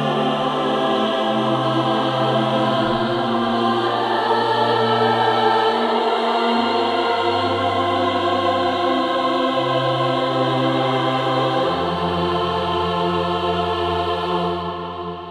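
Sampled all-female choir of sopranos and altos singing sustained chords on open vowels, over low held notes that change every few seconds. The sound fades out near the end.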